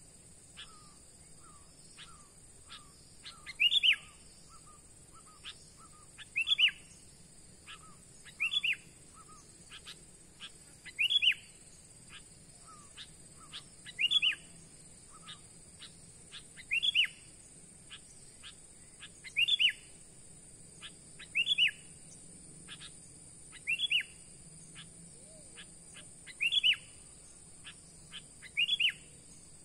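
A bird calling: a loud, short, downward-sweeping note repeated about every two to three seconds, with fainter quick chirps between. A steady high-pitched insect hum runs underneath.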